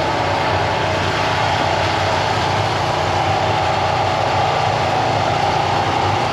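An engine running steadily at an even speed, with a constant hiss over it, during a hot-water boat decontamination wash.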